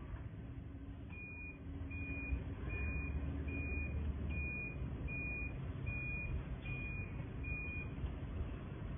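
Three-wheeled auto-rickshaw's reversing beeper sounding nine short, evenly spaced high beeps, about one every 0.8 seconds, over a low rumble.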